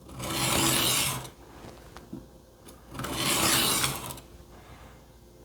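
Two slow strokes of a thin, cheap-steel kitchen knife edge ground across a wet Work Sharp Benchstone whetstone, each a rasping pass of about a second with a pause between, while working to raise a burr.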